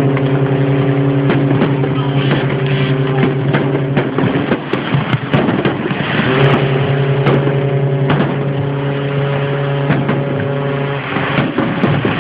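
A deep ship's horn gives two long blasts: the first lasts about four seconds, and the second starts about six seconds in and lasts about five. Fireworks bang and crackle throughout.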